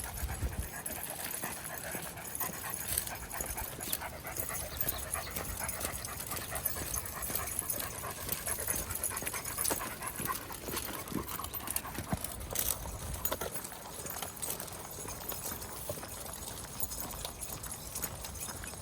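A pack of dogs panting as they walk, with scattered footsteps and small clicks throughout.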